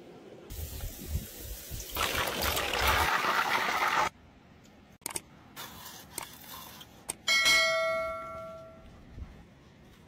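Thick, wet batter squelching and dripping as a hand lifts it out of a bowl, loudest for a couple of seconds and stopping suddenly. Then come a few sharp knocks, and a bell-like metallic ring that fades over about a second and a half.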